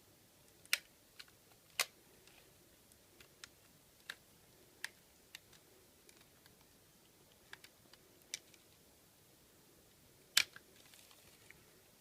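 Plastic retaining clips of a Samsung Galaxy S4's bezel snapping loose as a plastic case opening tool is run around the edge: a dozen or so sharp, irregular clicks, the loudest about a second in, about two seconds in and near the end. The clicks are the sign that the clips are releasing as they should.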